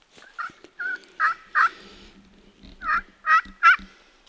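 Turkey calls: a run of four short, loud notes, then after a pause a run of three.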